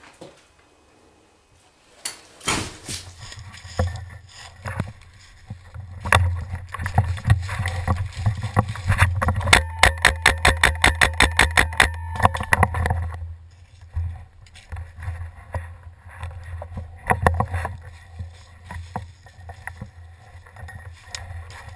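Low wind and handling rumble on a body-worn camera moving outdoors, with scattered knocks. About halfway through comes a few-second run of rapid, regular knocks.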